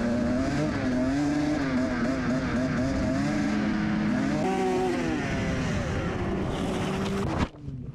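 Dirt bike engines running at speed, the nearest one loud, its pitch wavering and rising and falling with the throttle, and others audible under it. The sound cuts off suddenly near the end.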